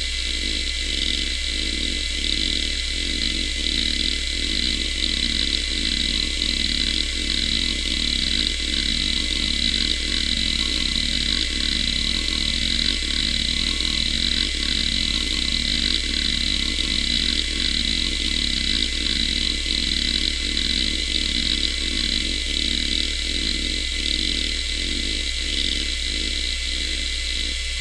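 Quantum ProDrive LPS 105S hard drive running with its lid off: the platters spin with a steady whine and hum, and the head actuator seeks back and forth in a rapid, even rhythm driven by the HDMotion test pattern.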